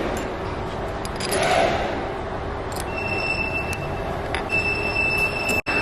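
Steady machinery noise with a thin high whine that comes in about three seconds in, breaks off briefly and returns.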